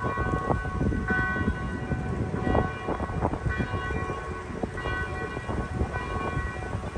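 Distant church bells ringing, several overlapping bell tones hanging in the air with new strikes now and then, over a steady low rumbling noise.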